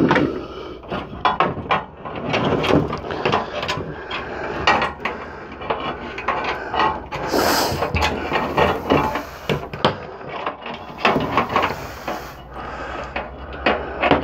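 Power supply cable bundles being pulled and worked loose inside a desktop PC case: repeated clicks and knocks of plastic connectors and cables against the case, with stretches of cable rubbing and scraping.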